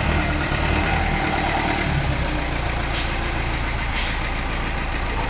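Flatbed tow truck's engine idling steadily, with two short clicks about a second apart midway through.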